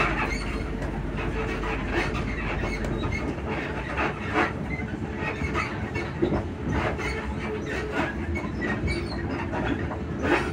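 Class 334 electric multiple unit heard from inside the carriage while running: a steady low rumble with irregular sharp knocks and clicks, about one a second, from the suspension and bogies.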